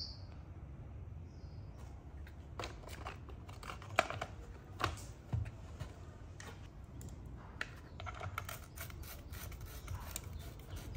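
Light clicks, taps and rubbing of hard plastic and metal parts as a small two-stroke brush cutter engine's cover is fitted and its spark plug lead pressed into place. There are a few sharper knocks about four to five seconds in and a quick run of small clicks near the end as a screwdriver goes into a cover screw.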